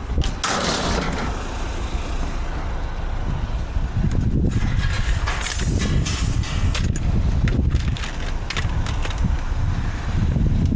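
Scrap metal, such as metal clothes airers, being handled and clattering in several sharp bursts, over a steady low rumble.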